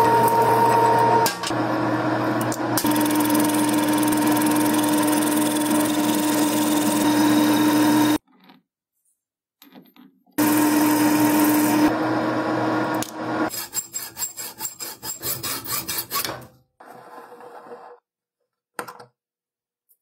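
Metal lathe running and cutting a stainless steel bolt, a steady machining noise with a held hum, for about eight seconds; it stops, runs again briefly, then gives way to about three seconds of quick rhythmic scraping strokes.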